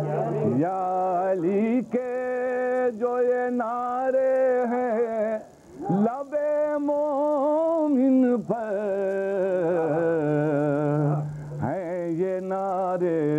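A man's solo voice chanting an Urdu devotional poem in praise of Ali, stretching the words into long held notes that waver in pitch. He breaks briefly for breath between phrases, most clearly about halfway through.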